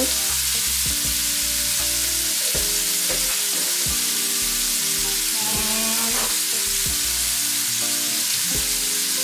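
Small shrimp frying in oil in a nonstick pan: a steady sizzle. Background music with sustained notes plays underneath.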